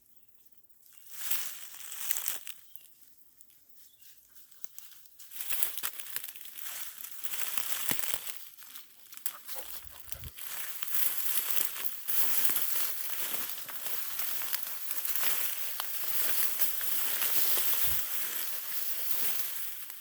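Footsteps crunching through dry leaf litter and brush, with twigs and leaves crackling, in short spells at first and steady from about five seconds in.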